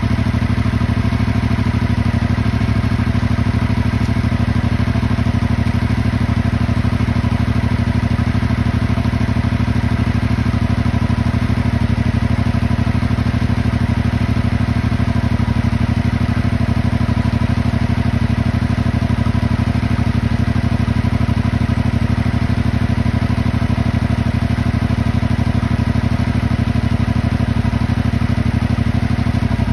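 Yamaha motorcycle's crossplane engine idling steadily through its exhaust while warming up after a cold start.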